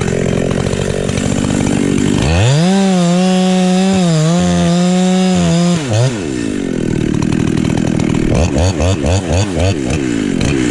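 Two-stroke chainsaw running: labouring in a cut at first, then held at full throttle with a high steady whine for a few seconds, then dropping off. From a little past the middle it is blipped up and down repeatedly, about two revs a second.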